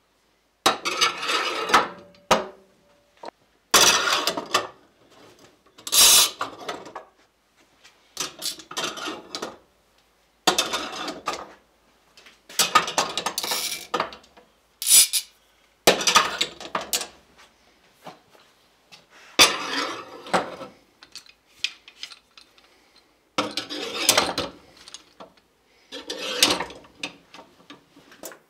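Steel bar clamps clanking and rattling against welded steel hangers as they are hung in a clamp rack one after another. It comes as about ten short bursts of metal clatter and clicks, with brief pauses between.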